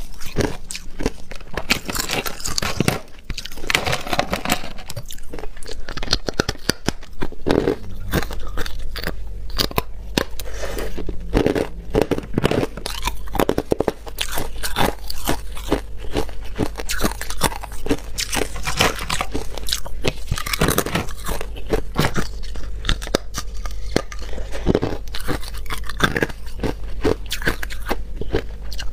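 Hard ice chunks being bitten and chewed, a close, loud crunching and cracking of ice that goes on without a break.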